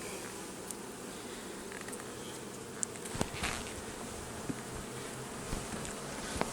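Honeybees buzzing steadily around an open hive during a frame inspection, with a few short clicks.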